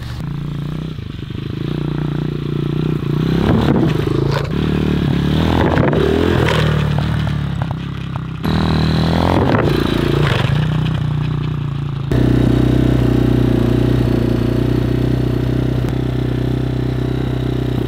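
Single-cylinder 250cc dirt bike engine running, its revs rising and falling a few times, with scraping and clattering over it; the sound changes abruptly twice.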